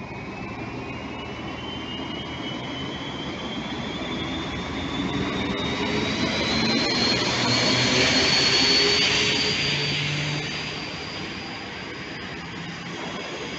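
ČD class 754 "Brejlovec" diesel locomotive passing close by at the head of a train. A high whine rises steadily in pitch over its engine note, and the sound is loudest as it passes about eight seconds in. After that comes the steady rolling of the passenger coaches' wheels.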